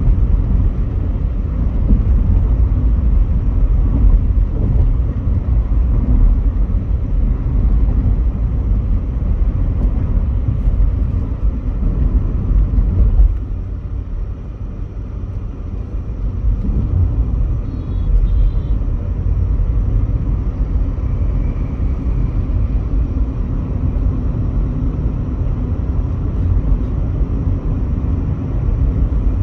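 Interior road noise of a Volkswagen Polo GT on the move: a steady low rumble of engine and tyres, dipping for a few seconds about halfway through and then building again.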